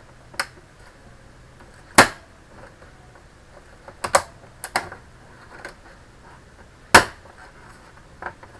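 Sharp plastic clicks and snaps, about nine at uneven spacing with the loudest two near 2 and 7 seconds in: the snap-fit clips of an all-in-one computer's plastic case popping loose as it is pried open with a plastic card.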